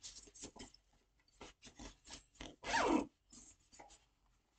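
A zippered fabric project bag being handled: irregular rustling and scraping, with short zipper rasps. The loudest is a brief downward-sweeping rasp about three seconds in.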